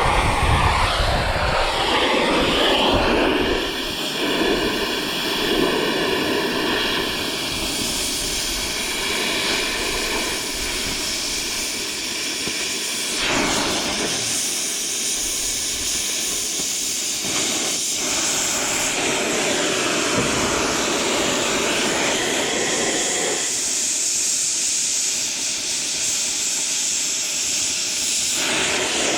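Stick-welding arc crackling and hissing steadily as a bead is laid, its tone shifting a few times.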